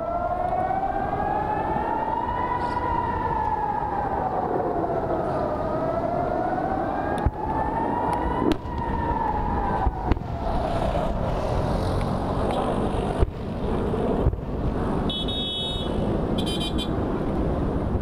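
Rocket-warning air-raid siren wailing, slowly rising and falling in pitch about every six seconds, then fading out about eleven seconds in under a wind-like roar. A few sharp bangs cut through in the second half.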